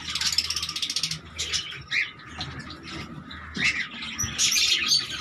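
Indian ringneck parakeets chattering and calling: a rapid pulsed chatter in the first second, scattered short calls after it, and a louder burst of calls near the end.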